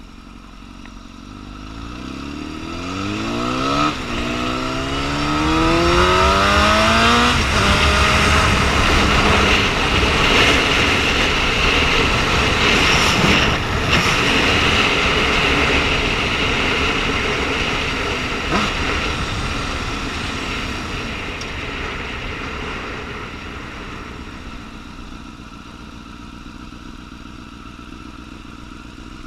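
Liter-class motorcycle engine accelerating hard, its pitch climbing through two gears with a shift about four seconds in. It then gives way to a loud, steady rush at speed that dies down over the last several seconds.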